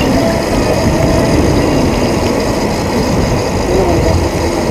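Wind buffeting the microphone of a camera on a moving bicycle: a loud, steady rumbling rush.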